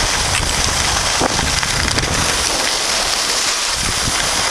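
Steady rushing hiss of wind over the microphone and the scrape of sliding on snow while moving down a ski slope, with an uneven low buffeting rumble underneath.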